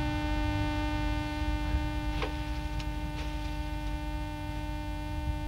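Steady electrical hum and buzz on the audio track, with a low rumble underneath and a couple of faint clicks about two and three seconds in.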